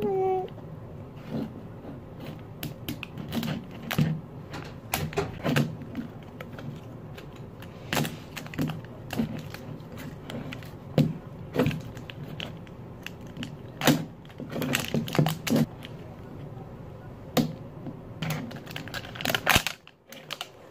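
Plastic wrapping of an L.O.L. Surprise toy ball crinkling and tearing as it is peeled off by hand, in irregular sharp crackles and clicks.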